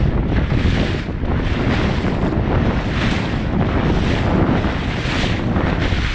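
Wind buffeting the microphone in uneven gusts, over the rushing of choppy sea water around a boat.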